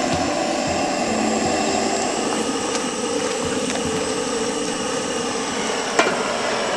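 Steady hissing roar of camp cooking over a gas burner, with a sharp click about six seconds in.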